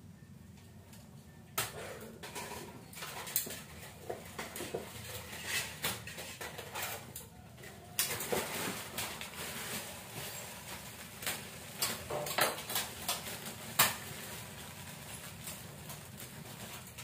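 Kitchen items being handled: scattered clicks, knocks and light clatter, busier in the second half, with one sharper knock late on.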